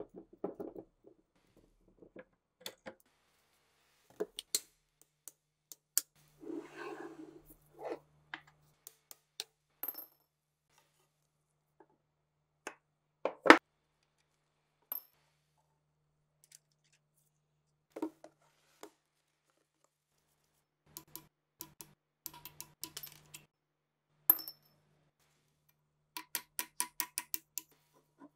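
Rusty steel RPG-7 launcher parts being handled and set down: scattered metal clinks and knocks, a short scrape about seven seconds in, one sharp knock about halfway, and a quick run of ringing metal clicks near the end.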